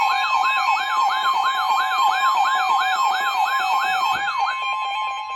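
Emergency Alert System two-tone attention signal, a steady harsh alarm tone, with a siren sweep rising and falling about three times a second over it. The sweeping stops about four and a half seconds in while the steady tone holds on.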